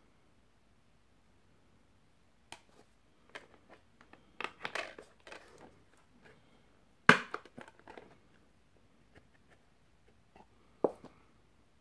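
Blu-ray discs being handled on a clear plastic multi-disc case: scattered plastic clicks and crackling rattles as the discs are lifted off and pressed onto the case's hubs, with a sharp snap about seven seconds in and another near the end.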